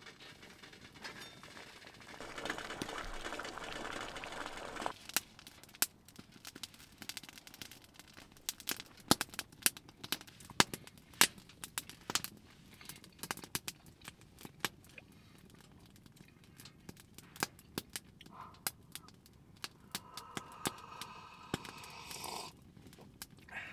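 Wood fire in a small camp wood stove crackling, with irregular sharp pops. A few seconds of steady hiss about two seconds in.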